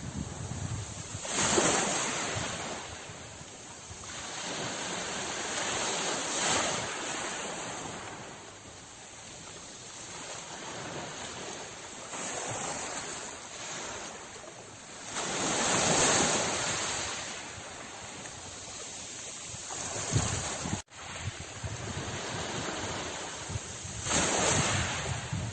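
Sea waves surging and breaking, each wave swelling up every few seconds over a continuous wash of water and wind. The sound drops out for an instant about twenty-one seconds in.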